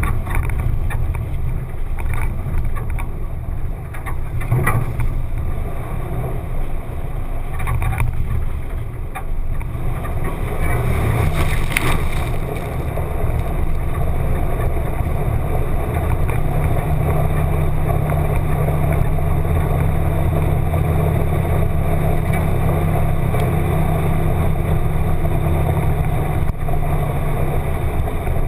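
1995 Jeep Wrangler YJ's engine running as it drives a dirt trail, heard muffled through a GoPro's waterproof housing. A few short knocks come in the first half, and from about halfway the engine note holds steady.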